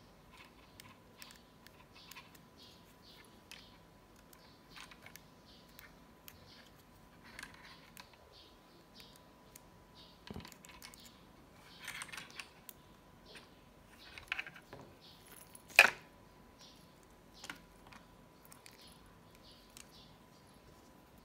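Small metal tools scraping and clicking at the lugs and band pins of a Garmin Forerunner 230 sports watch as the band is worked off. The sound is a string of faint ticks and scrapes, with one sharper click about three-quarters of the way through.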